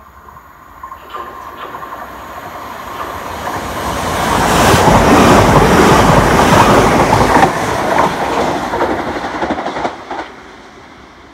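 Southern Class 377 Electrostar electric multiple unit approaching and running past along the platform: a rising rumble and clatter of wheels over the rails, loudest in the middle, then dropping away sharply near the end.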